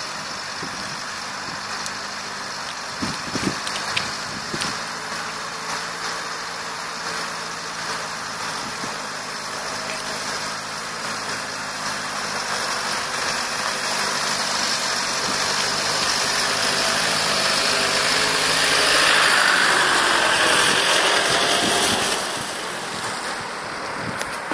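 Toyota Land Cruiser Prado engine pulling slowly up a rough slope, growing louder as it draws near and dropping off suddenly about three quarters of the way through as it passes. Wind buffets the microphone.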